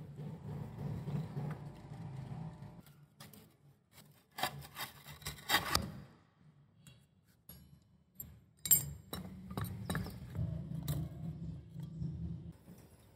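Steel motorcycle front fork legs and steering stem clinking and scraping as they are handled on a concrete floor: a quick cluster of clanks about four to six seconds in and one sharp clink near nine seconds, over a low hum.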